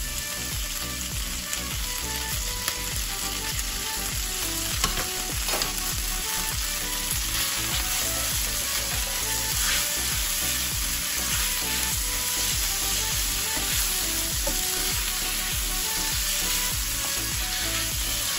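Boiled fettuccine sizzling in oil, garlic, onion and pesto in a frying pan as it is tossed with tongs and then stirred with a silicone spatula. There are a few light knocks about five seconds in.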